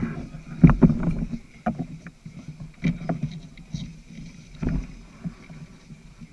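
Irregular knocks and rustles close to the microphone, a few heavier bumps among them, over a low steady rumble: handling and table noise at a signing table covered with photographs.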